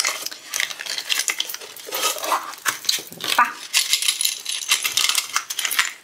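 A small plastic bag of diamond-painting tools being handled and opened: thin plastic crinkling while small hard plastic pieces inside click and clink against each other in quick, irregular taps.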